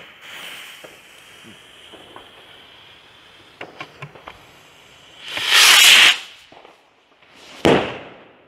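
Xplode Swirl rocket being fired: a click as the jet torch lights it, the fuse hissing steadily for about three seconds with a few small crackles, then the rocket's loud rushing whoosh as it leaves the stand. About two seconds later comes a sudden bang as the shell bursts, meant to give a brocade effect.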